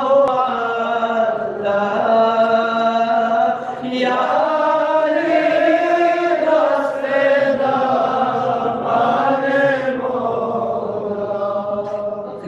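A man's solo voice chanting a Balti qasida (devotional praise poem) into a microphone, in long, slowly bending held notes with short breaks between phrases.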